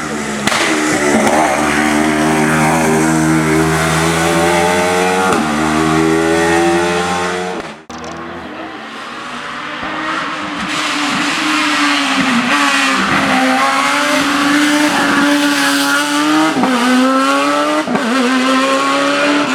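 Racing car engines at full throttle, climbing in pitch through each gear and dropping back at every upshift. The sound cuts off sharply about eight seconds in, then another stretch of revving and quick gear changes follows.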